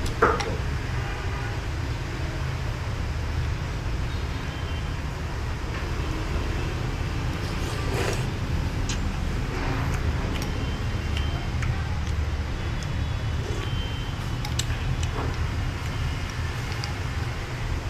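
Steady low rumble of background traffic, with light clicks of a spoon and chopsticks against a bowl and a sip of broth about eight seconds in.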